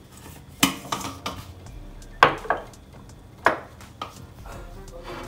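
Kitchen dishes and utensils clattering: several sharp knocks, each with a short ring, irregularly spaced.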